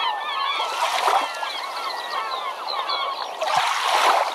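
A flock of birds calling over one another in many short rising and falling calls, with water rushing and splashing that swells about a second in and again near the end.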